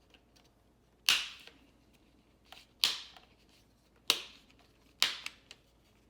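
Plastic screen bezel clips of an Acer Aspire E15 laptop snapping loose as the bezel is pried off by hand: four sharp snaps about a second apart.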